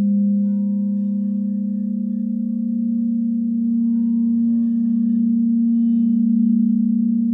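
Frosted quartz crystal singing bowls ringing in a sustained low tone with a slow waver, kept sounding by a stick worked around a bowl's rim. A fainter higher tone shifts slightly lower about halfway through.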